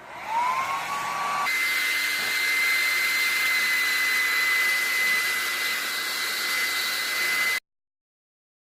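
Hand-held hot-air blower spinning up with a rising whine, then running steadily with a high whine and rushing air. It is heating the phone's back glass to soften its adhesive. It cuts off abruptly near the end.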